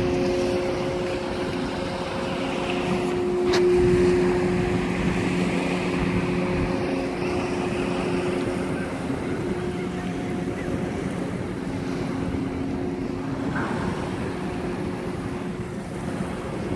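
Steady low engine hum of a ship across the water, its pitch even, swelling and fading, over rough wind noise on the microphone. A single sharp click about three and a half seconds in.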